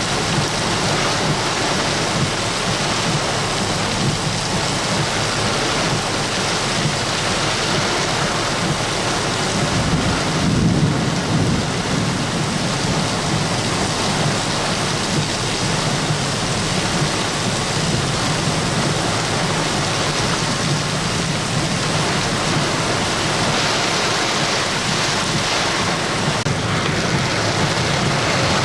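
Torrential tropical-storm rain pouring steadily, with a low rumble of thunder about ten seconds in.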